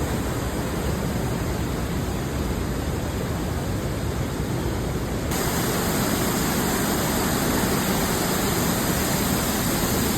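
Steady rush of falling water from a waterfall, a dense even noise that gets brighter and a little louder about five seconds in.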